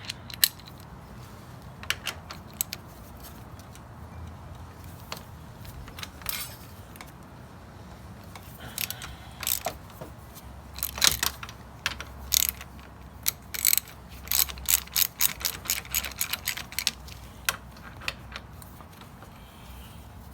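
Ratchet wrench on a 15 mm bolt clicking in short bursts as the two front brake bolts are loosened, with the clicking fastest and densest in the latter half.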